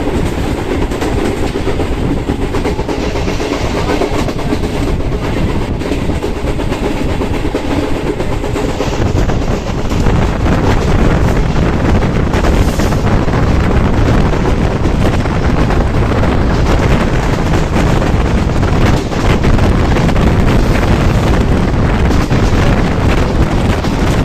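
Express train hauled by a diesel locomotive running past at speed. The sound grows louder and heavier about ten seconds in.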